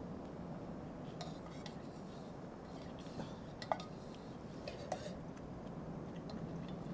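Chopsticks clinking against a metal camping mug while noodles are eaten from it, with small scraping and eating sounds. Two sharper ringing clinks come about a second apart, midway through.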